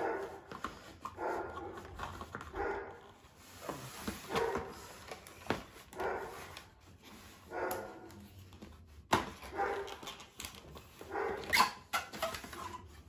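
A dog barking and whining in short calls about every second and a half. Between them, cardboard packaging and plastic parts are being handled, with a sharp knock about nine seconds in.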